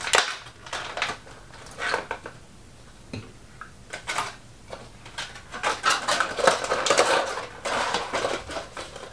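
Clear plastic packaging insert of a Funko Pop box crinkling and clicking as it is handled and the vinyl figure is taken out. The handling is sparse at first and gets busier over the last few seconds.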